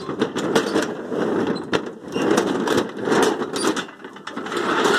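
Close rustling and rattling of things being handled against the microphone, with many scattered clicks.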